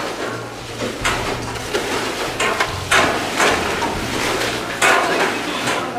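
Irregular metal knocks and scrapes as large stirring paddles work the contents of a giant metal cooking pot, over a steady low hum.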